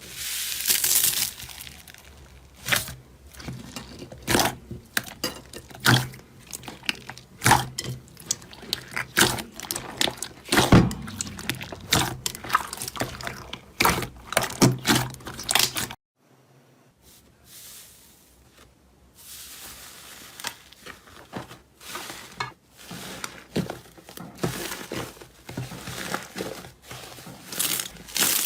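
Slime being handled and squeezed, giving a dense, irregular run of crackles, pops and clicks. It drops to near silence for about a second a little past halfway, then the crackling resumes.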